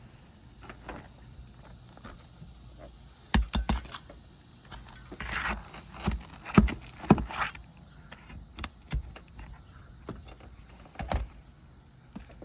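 Flat bar knocking and scraping against asphalt roof shingles as nails are pried out: a quick cluster of three sharp knocks about three and a half seconds in, a scrape around five seconds, then scattered single knocks.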